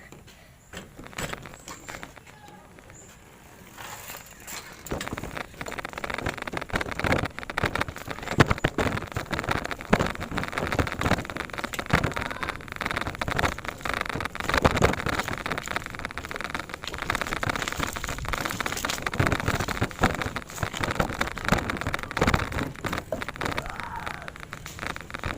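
Bicycle being ridden over a rough surface: a constant rattling rush with frequent irregular knocks and jolts, beginning about five seconds in after a quieter start.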